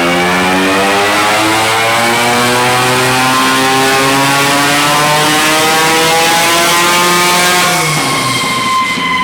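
Single-rotor Mazda rotary engine of a racing lawn mower running hard under load, its pitch climbing steadily as it accelerates, then dropping sharply near the end.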